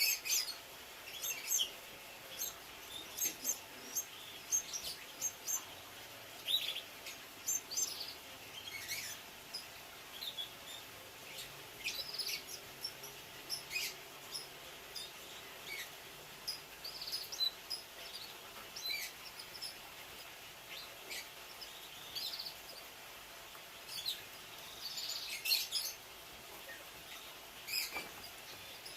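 Domestic canaries giving short, scattered chirps and calls, many high notes spaced irregularly rather than a continuous song.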